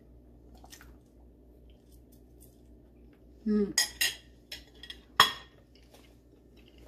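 A quiet pause while a woman chews a bite of cake. About three and a half seconds in there is a short murmured 'mm', then three sharp clinks or clicks over the next two seconds, the last the loudest.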